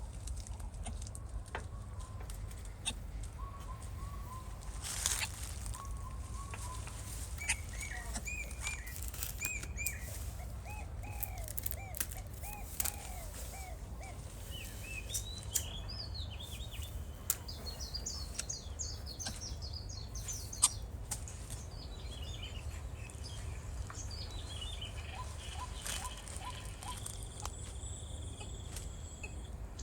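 Birds chirping: runs of short, rising-and-falling chirps at several pitches, some low and some high, over a steady low rumble.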